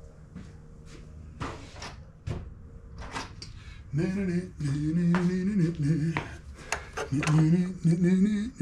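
Metal tools clinking and knocking against the engine as a wrench is worked onto a tight oil filter. About halfway through this gives way to a man's drawn-out, wavering straining sounds.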